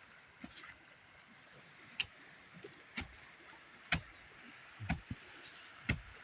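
Sharp wooden knocks about once a second, six in all, from work on wooden tent stakes, over a steady high chirring of night insects.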